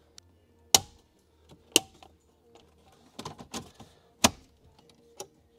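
Plastic dash trim bezel of a 2010 Toyota Corolla being pressed in, its clips snapping into place: three sharp snaps, the first two a second apart, with a run of lighter clicks and rattles before the third.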